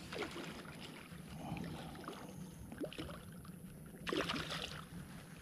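Faint water sloshing under a steady low rumble, with scattered small splashy sounds and a brief louder rush of noise about four seconds in.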